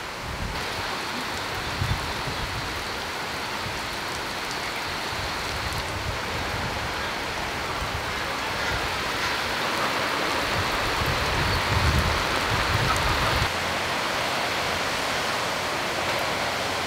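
Steady rain falling, an even hiss of water. The low rumble underneath drops away about 13 seconds in.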